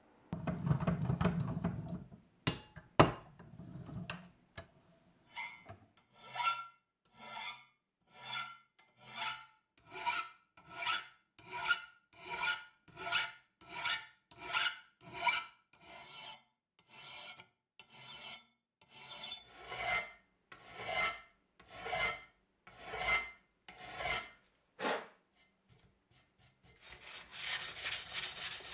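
Hand file rasping along the edge of a cast-iron sign in even strokes, about one and a half a second, smoothing off rough casting leftovers. A single sharp knock comes about three seconds in, and near the end the strokes give way to continuous quick rubbing.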